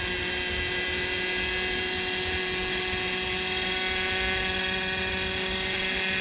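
Hirobo Sceadu RC helicopter running on the water, rotor spinning, giving a steady high whine of several tones over a low rumble.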